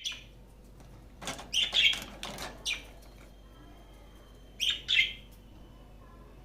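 Lovebird giving sharp, loud chirping calls in quick runs: a cluster of several calls about a second in, and two more near the five-second mark.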